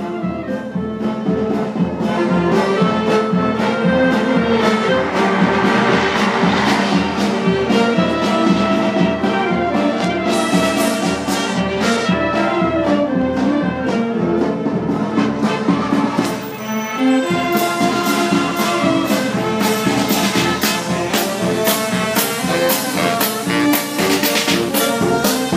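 Street wind band of clarinets, saxophones and brass playing a tune over a steady drum beat, with a short break in the playing about two-thirds of the way through.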